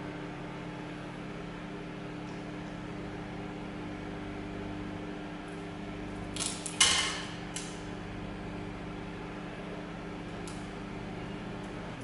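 A microwave oven running with a steady electrical hum. About six and a half seconds in, a short burst of crackling peaks in one sharp crack from the CD on the turntable, with a few faint clicks after it. The hum cuts off at the end.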